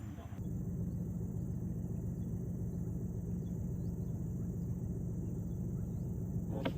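A steady low engine drone, with faint insect chirps over it.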